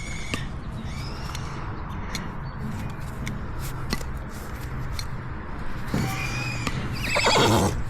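Miniature horse giving a loud whinny near the end, after a few seconds of scattered sharp clicks.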